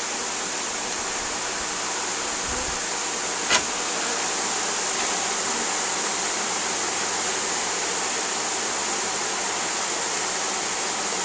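A mass of honeybees from a freshly installed package buzzing at the open hive, heard as a steady, hiss-like hum. A single short knock about three and a half seconds in.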